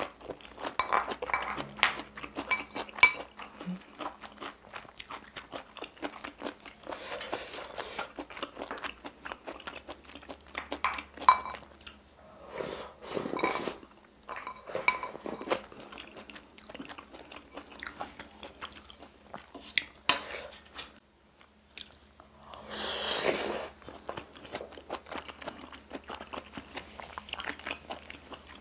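Close-miked eating sounds: wet chewing, lip smacks and mouth clicks, with a few longer slurps of spicy sauce drunk straight from a bowl, about a third of the way in, near the middle and again later.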